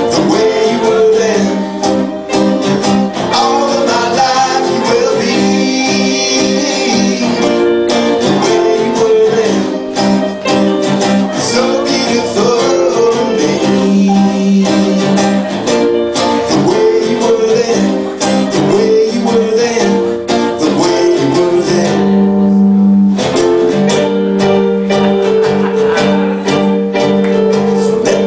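Music: guitar playing, with singing.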